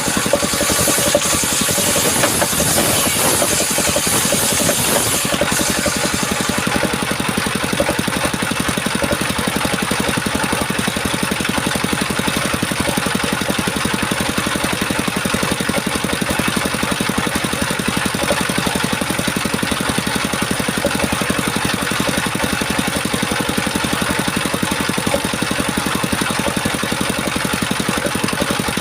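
Engine-driven homemade circular-saw sawmill running steadily. A high hiss rides on top for roughly the first five seconds, then stops.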